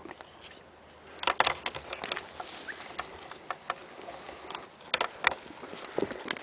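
Sharp clicks and crunches at irregular times: a quick cluster of several about a second in, a scatter of fainter ones, and two louder ones close together near five seconds in.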